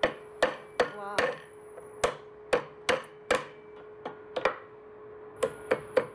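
Chinese cleaver chopping and cracking cinnamon stick on a wooden cutting board: about a dozen sharp knocks of the blade on the board, in uneven clusters with a short pause just before the end.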